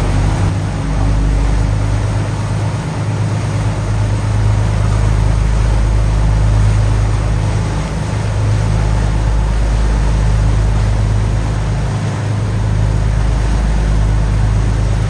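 River ferry's engines running steadily under way: a low drone with a constant rushing noise over it.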